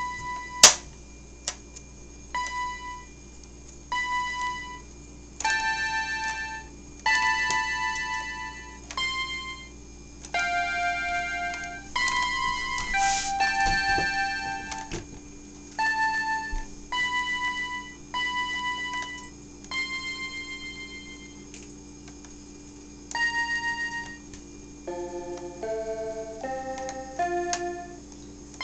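Toy electronic keyboard played one note at a time by a toddler poking at the keys: single notes with gaps between them, each held about a second with a wavering tone, and a quicker run of lower notes near the end. A sharp click about a second in is the loudest sound.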